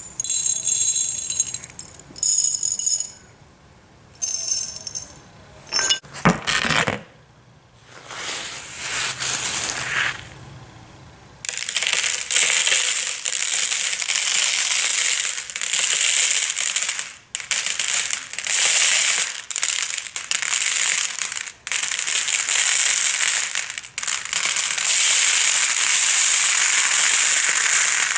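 Tiny aquatic gravel substrate being handled. First come short bursts of clinking and jingling, with ringing high tones. From about eleven seconds in, a long continuous rushing rattle of the pebbles moving together, broken only by a few short pauses.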